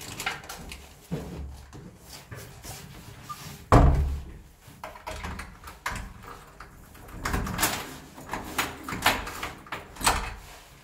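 A door shuts with a heavy thud about four seconds in. Later come a run of quieter clicks and rustling, as of a jacket and bag being handled at close range.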